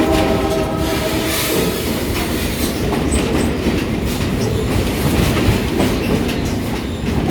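Passenger excursion train running on the rails: the locomotive's horn sounds a chord that cuts off about a second and a half in. It is laid over the steady rumble and clickety-clack of the coach's wheels.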